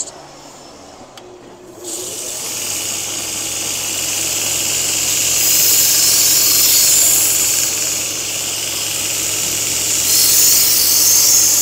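2x42 belt grinder running a 120-grit ceramic belt, with a knife edge ground against it to cut in a burr. A low motor hum is joined about two seconds in by the loud, steady hiss of the belt and grinding, which swells around the middle and again near the end.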